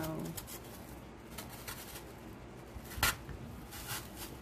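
Rustling and light crackling of artificial greenery being handled and pushed into place in a centerpiece box, with one sharper knock about three seconds in.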